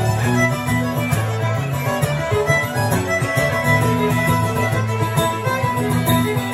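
Fiddle and acoustic guitar playing an Irish jig together, the fiddle carrying the melody over a steady rhythmic guitar accompaniment.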